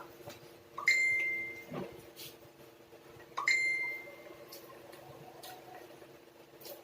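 Two clear bell-like dings about two and a half seconds apart, each struck sharply and ringing briefly before fading, over a faint steady hum.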